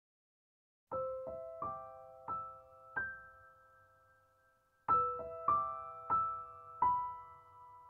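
Gentle solo piano background music: a slow phrase of single ringing notes begins about a second in and fades away, then a second phrase starts about five seconds in.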